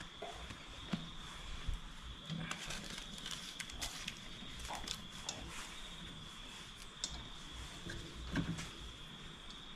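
Faint handling sounds as bread dough is set into a cast-iron camp oven lined with baking paper: light paper rustles, small clicks and a couple of soft knocks, over a steady faint high tone and hiss.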